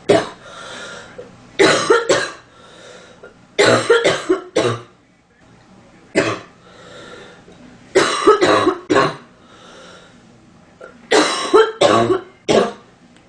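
A woman coughing in repeated fits of one to four sharp coughs every two to three seconds, drawing breath between them. She has a stuffy cold.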